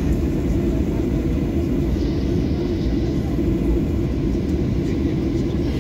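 Steady low rumble of a Ryanair Boeing 737's jet engines, heard inside the cabin as the airliner rolls along the ground.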